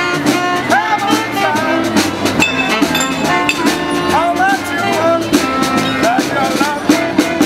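Street band playing an upbeat funky tune: a steady drum beat under a melody line with swooping, sliding notes.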